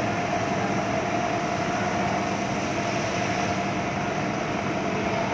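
A motor runs steadily, giving an even drone with a constant hum.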